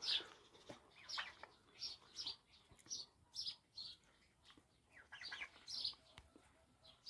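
Faint, repeated high chirps from small birds, each a quick falling note, coming every half second or so in small groups.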